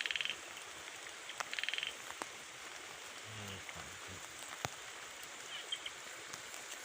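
A frog calling: short buzzy trills repeated every second or two, over a steady background hiss. A faint murmur of a voice comes about halfway through, with a couple of small clicks.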